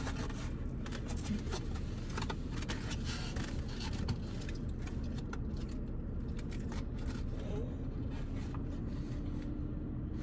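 Steady low rumble of a car's running engine inside the cabin, with a faint hum, overlaid by light clicks and scrapes of a plastic fork and foam takeout boxes being handled.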